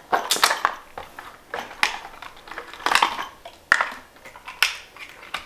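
Handling noise of small cable-end parts being fitted onto a stripped 4-gauge battery cable: five or six sharp crackles and clicks, irregularly spaced about a second apart.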